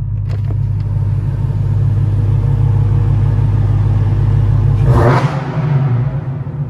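Dodge Challenger SRT Hellcat's supercharged 6.2-litre V8 running with a deep, loud exhaust rumble that slowly builds, heard through the open window. About five seconds in there is a brief harsh rush of noise, after which the lowest part of the rumble drops off.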